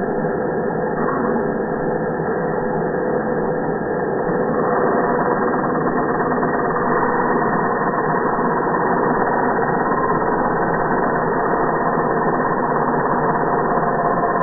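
Electric angle grinder running steadily, its sound growing louder about four and a half seconds in.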